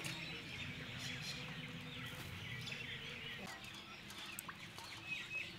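Faint birds chirping now and then over a quiet, steady outdoor background.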